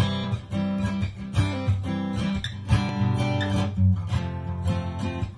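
Background music of a strummed acoustic guitar, chords struck in a steady rhythm.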